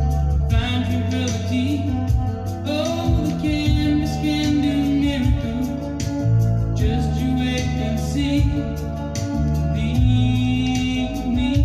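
A song with singing over sustained bass notes and a steady beat, played back through a Yamaha CA-R1 stereo amplifier.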